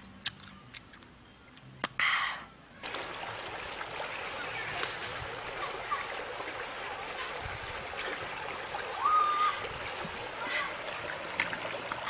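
A few faint mouth clicks from chewing. Then, after a brief burst of noise, a shallow rocky stream runs steadily over stones. A short high whistle comes about nine seconds in.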